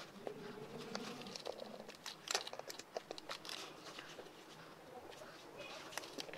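Faint handling sounds of fingers pressing modelling clay into a plastic mold: soft rubbing and scattered light clicks against the plastic, a few louder ones about two and a half to three seconds in.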